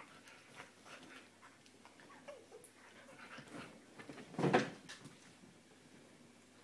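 A dog and a fox tussling in play on a blanket-covered sofa: soft rustling and scuffling, with one short, loud animal cry about four and a half seconds in.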